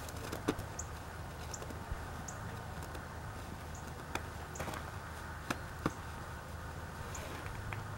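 Snow being packed into a snowball by gloved hands: a few short crunches and taps scattered through, over a steady low background hum.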